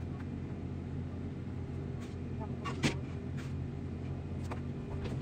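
A steady low hum, with a few light clicks and a sharper tap about three seconds in.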